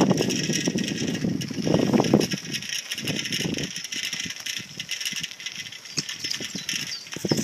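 Bicycle being ridden along an unpaved path, its tyres rolling and parts rattling with many small clicks over bumps. Under it runs a steady hiss with irregular low rumbling swells.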